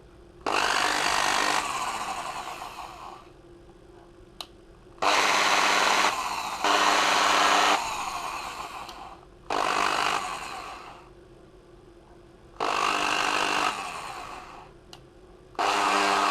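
Bosch corded electric drill switched on and off about six times in short runs, each starting abruptly, running about a second and winding down. It runs slow and makes an odd noise, a fault the repair traces to worn brushes and dirt around the motor seat.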